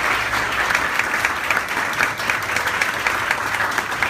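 A roomful of people applauding: many hands clapping in a dense, steady patter.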